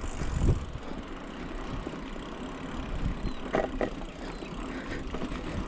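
Mountain bike rolling over a dirt singletrack: tyre noise and rattling from the bike, with a low thump from a bump about half a second in and a short clatter a little past halfway.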